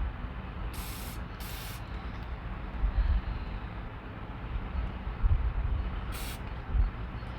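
Aerosol carburetor cleaner sprayed in three short hissing bursts, two close together about a second in and one near the end, over a low background rumble.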